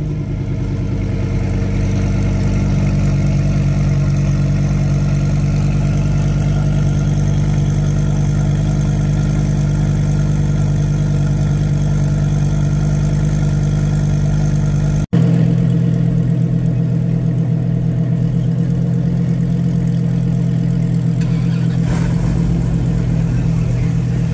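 Lamborghini Huracán Tecnica's 5.2-litre V10 idling steadily after a rev. About 15 s in the sound cuts abruptly to a V10 idle of a slightly different, deeper tone.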